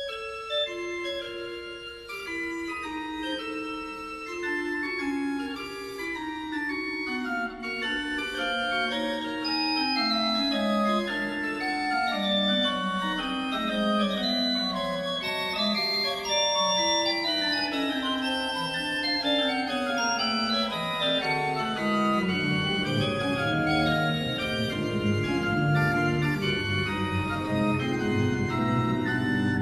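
Pipe organ playing the opening of a brisk scherzando fugue on light flute stops (Gedackt 8', Quintadena 8' with a small 1 1/3' quint). The fast, detached subject starts alone and further voices join one by one. Deep pedal notes enter about twenty seconds in.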